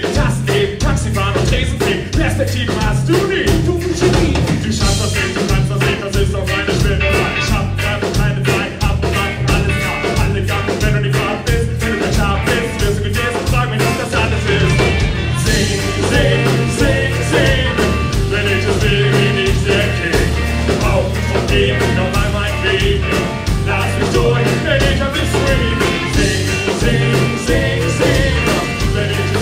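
Live band playing an upbeat reggae/world song with a steady drum beat and a walking bass line.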